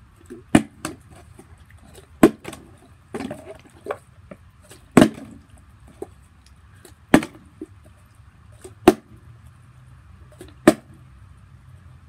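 Partly filled plastic water bottles flipped and landing on a concrete slab: a series of sharp thuds, one every one to two seconds, several bottles landing on their caps.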